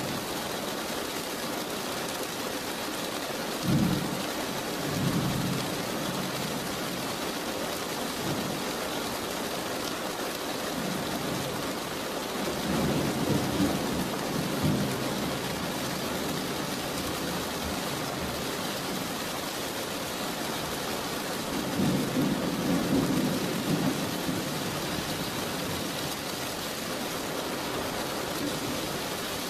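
Steady heavy rain with rumbles of thunder swelling up a few times: a few seconds in, around the middle, and about three quarters through.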